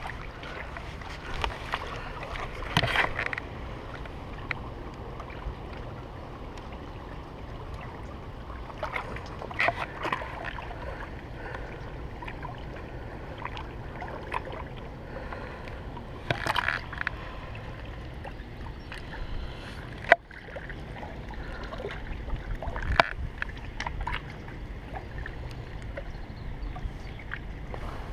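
Small waves lapping against shoreline rocks, with low wind rumble on the microphone and a few brief knocks, rustles and splashes from handling at the water's edge; one sharp click about two-thirds of the way through.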